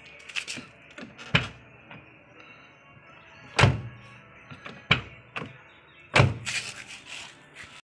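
Front-left door of a Geely Panda worked by its newly fitted outside handle: a series of sharp clunks from the handle and door latch, the loudest about three and a half and six seconds in.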